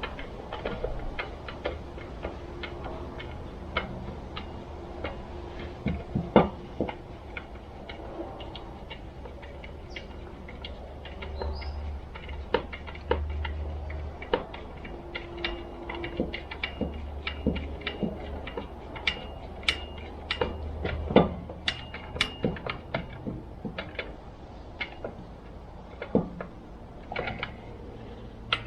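Irregular light clicks, taps and clinks of small metal chainsaw parts and hand tools being handled, with a few sharper knocks.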